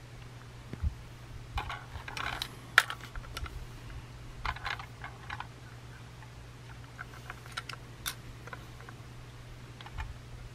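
Hard plastic toy train cars clicking and rattling as they are picked up and handled, in irregular clusters of small clicks with one sharper knock a few seconds in. The cars are from a Plarail L0 series maglev toy set.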